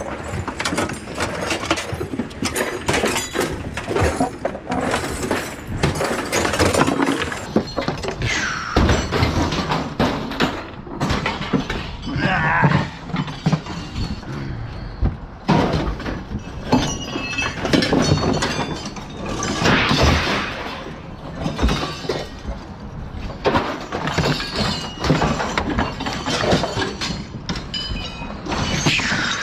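Scrap steel being thrown off a truck onto a pile: a steady run of clanks, crashes and thuds of metal pieces landing, with the odd brief metallic scrape or ring.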